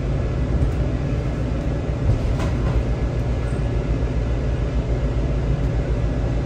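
WMATA 7000-series metro car running at low speed, heard from inside the car: a steady low rumble of wheels and running gear with a faint steady tone above it.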